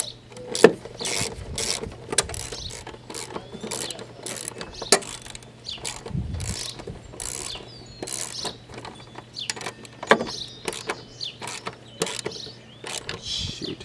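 Hand tools working on a lawn mower engine during an engine swap: irregular metal clicks, clanks and knocks.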